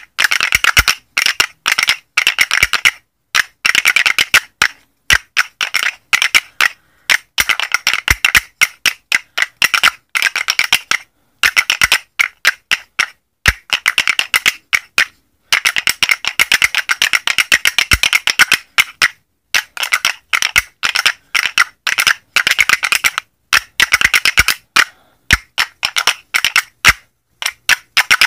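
Oak wooden zills (finger cymbals made by Magus Obeiro) clacked together on the fingers: dry, quick wooden clicks in rhythmic patterns, with fast rolls between single strikes and two short pauses.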